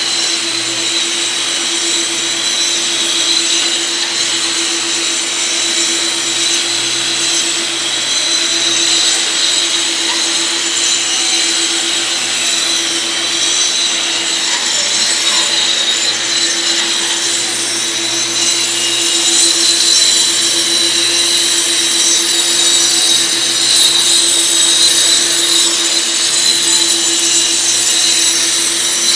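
Hand-held angle grinder with a dust shroud, grinding thinset mortar off a concrete floor. It runs steadily and loudly with a constant hum and a hissing grind as it is worked across the slab.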